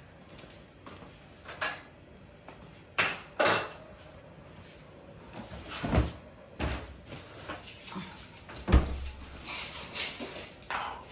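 Kitchen cupboard doors opening and shutting and a steel container being handled: a scattered series of clicks and knocks, the loudest about three-quarters of the way through.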